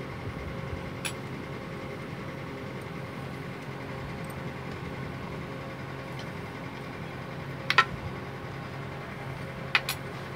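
A spoon knocking against a steel bowl while potato filling is scooped onto bread, a few short sharp clicks over a steady hum: a faint click about a second in, a loud pair about eight seconds in, and another pair near the end.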